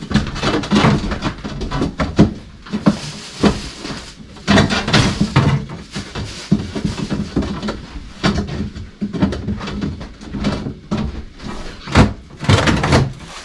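Irregular knocks, clatter and rustling as frozen fish and boxes are handled inside an open chest freezer, with one sharp knock near the end.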